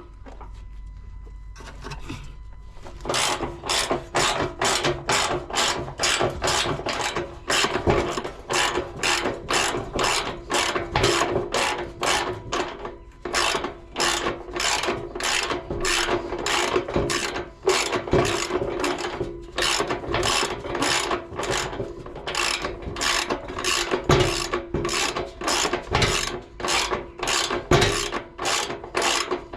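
Hand ratchet wrench clicking steadily as a bolt is wound out, about two to three clicks a second. It starts about three seconds in and pauses briefly twice.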